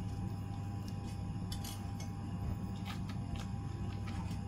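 Faint scattered clicks and crackles of a knife and hands working apart a barbecued chicken on a wooden chopping board, over a steady low hum.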